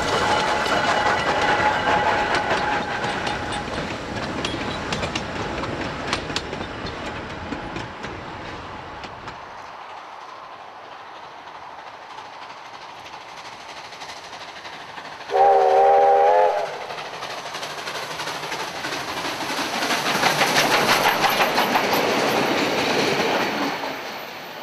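Climax geared steam locomotive and its narrow-gauge carriages rolling past, wheels clicking over the rail joints, fading away over about ten seconds. A steam whistle then blows once for about a second, and another steam train passes, growing louder and then dropping away near the end.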